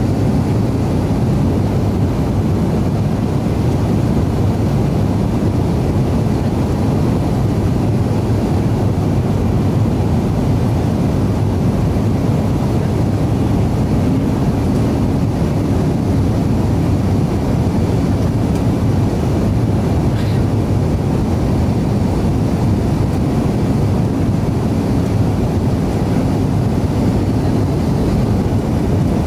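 Steady cabin roar of an Avro RJ100 on final approach, heard from a window seat over the wing: rushing airflow around the fully extended flaps and the Lycoming LF507 turbofans running. One faint tick about two-thirds of the way through.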